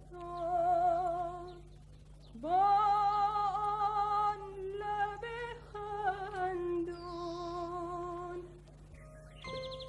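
A woman's voice singing a slow, unaccompanied melody in long held phrases with vibrato, sliding up into a phrase about two and a half seconds in. Near the end, bell-like chiming tones come in.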